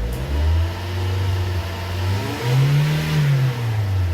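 Toyota Corolla's 1.8-litre 16-valve four-cylinder engine revved with the throttle: it jumps up and holds, then climbs higher about three seconds in and drops back toward idle near the end. It is being revved to check a harsh noise from the accessory belt drive that goes away when the engine is accelerated.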